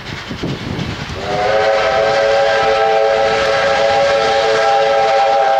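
Victorian Railways R class steam locomotive R707's steam whistle sounding one long, steady blast of several notes at once, starting about a second in. Before it come a few beats of the locomotive's exhaust.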